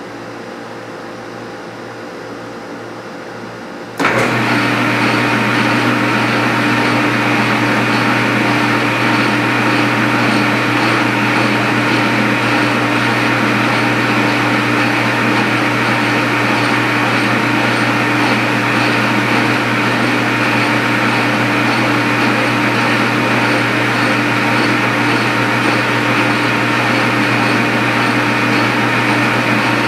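Metal lathe started about four seconds in, then running steadily with a low hum and a fixed whine as it turns a light five-thousandths cut on a bronze workpiece.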